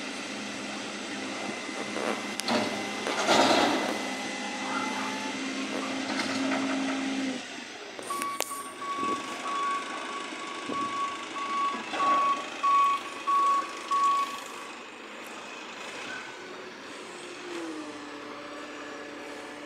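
Garbage truck working a bin lift: a steady hum with a couple of loud clunks for about seven seconds, then its reversing alarm beeping repeatedly for about six seconds, and the engine note rising near the end.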